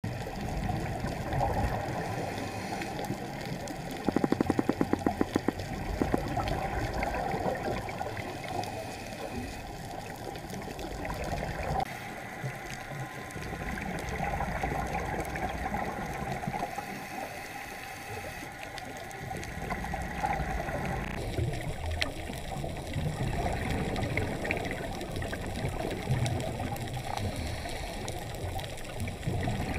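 Underwater sound of scuba bubbles gurgling and rushing, swelling and fading every few seconds with the diver's breaths. A quick run of about a dozen sharp clicks comes about four seconds in.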